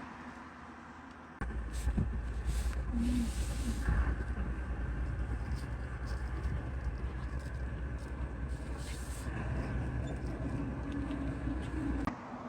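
Low, steady engine rumble of a running motor vehicle, starting suddenly about a second in and cutting off sharply just before the end.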